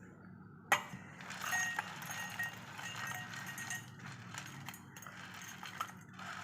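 Crisp fried gram-flour strands (karalu) being tipped into a mixer jar: a sharp clack nearly a second in, then a run of light clattering and crackling as the crunchy pieces fall and settle.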